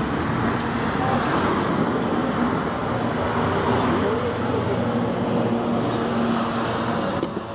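Steady noise of road traffic passing, cars running by, which drops away suddenly near the end.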